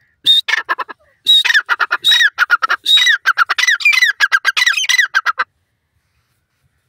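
Grey francolin giving its loud, harsh, rapidly repeated call. A short burst comes about a quarter second in, then after a brief pause a long fast run of clipped, falling notes that stops abruptly about five and a half seconds in.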